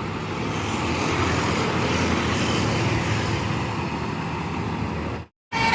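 Bus engine and road noise, a steady rumble with no horn sounding; the sound cuts out completely for a moment near the end.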